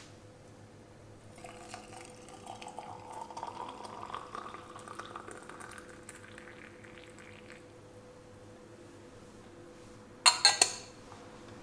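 Liquid poured into a container, its pitch rising as it fills, for about six seconds. Near the end come three or four sharp clinks, as of glass or crockery.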